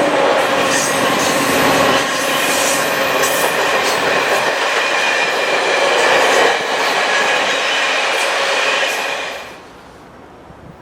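Railcars of a passing train rolling by close at speed, wheels clicking over rail joints with some squealing from the wheels. The noise drops away sharply about nine and a half seconds in.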